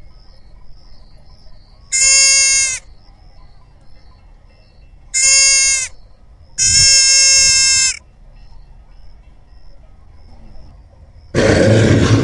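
An animal bleating three times, each call a steady, even-pitched cry, the last one longer, over faint high chirping in the background. Near the end a loud, rough, noisy sound begins suddenly.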